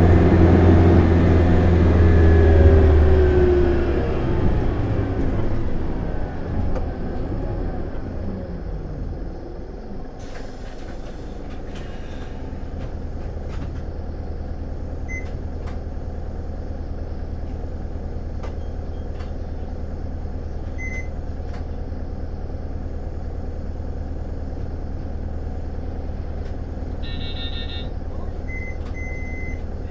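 Isuzu Erga city bus's 5.2-litre four-cylinder turbo-diesel heard from inside the cabin, running hard at high revs, then winding down in pitch and settling to a steady low idle. A short hiss of air comes about ten seconds in, with faint regular clicks and a brief electronic chime near the end.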